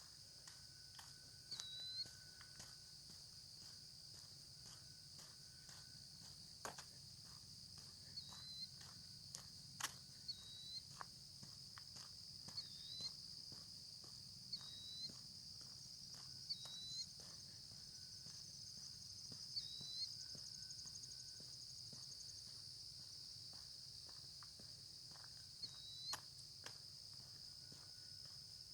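Steady, high-pitched chorus of crickets, with short chirps every few seconds and scattered soft footsteps.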